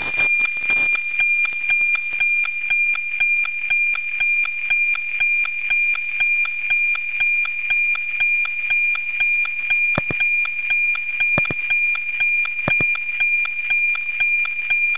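NOAA 19 weather satellite's APT image signal, demodulated by an RTL-SDR receiver: a steady high tone with the regular tick-tock beat of the image lines coming in. A few sharp clicks cut through it about ten to thirteen seconds in.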